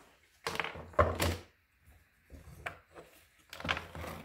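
Handling knocks as a plastic electric fan and its wire guard are set down and moved on a wooden workbench: a handful of short clatters and thunks, loudest about a second in.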